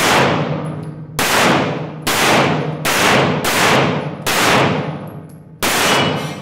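A string of seven pistol shots fired about a second apart, each followed by a long echoing decay off the concrete walls of an indoor range.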